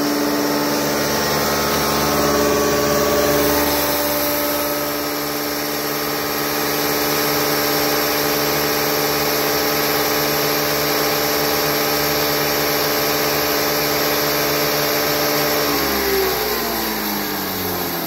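Model 198 hammer mill running with a steady hum while grinding hemp hurd through a 4 mm screen. Near the end it is shut off and the hum falls steadily in pitch as the rotor winds down.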